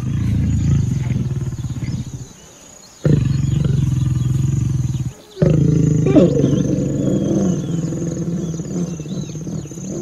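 A large animal growling deeply in three long stretches, broken by two short pauses about two and five seconds in.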